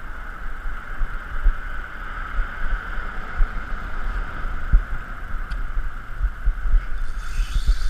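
Size-4000 spinning reel's drag slipping in a continuous high buzz as a hooked jack strips braided line off against a drag set tight. The drag rises to a higher whine near the end. Low irregular thumps sound underneath.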